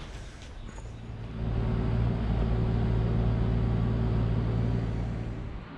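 A train's steady low mechanical hum, swelling about a second and a half in, holding steady, then cutting off suddenly near the end.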